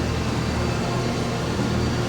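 A steady low mechanical hum with an even hiss above it, unchanging throughout.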